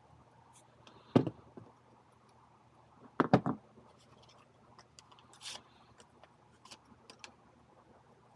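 Sharp knocks and clicks from small objects being handled: one about a second in, a quick cluster of three around three seconds in, then a few lighter ticks.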